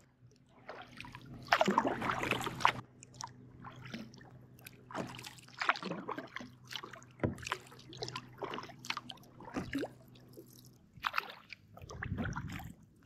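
Kayak paddle strokes on calm water: the blade dipping and pulling through the water with splashes and drips, a stroke every second or two, the loudest about two seconds in.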